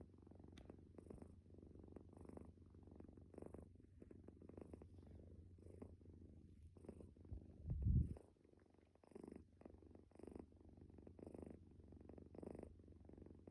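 A sleeping calico cat snoring softly, with a rasp on each breath about once a second over a steady low rumble. A dull low bump about eight seconds in is the loudest sound.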